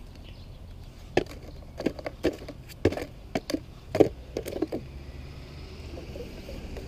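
Trading cards being dropped by hand into a cardboard box: a quick, uneven run of about a dozen light taps and slaps over three or four seconds.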